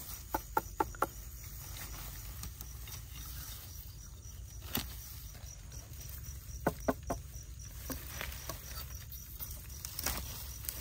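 Short groups of sharp clicks and taps: four in quick succession near the start, a single one near the middle, three more just after it and one near the end. Under them runs a faint, evenly pulsing insect chirp.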